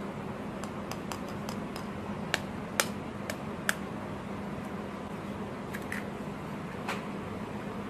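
An egg knocked sharply against the rim of a ceramic bowl to crack it open, four sharp knocks in about a second and a half, with lighter clicks of shell around them. A steady low hum runs underneath.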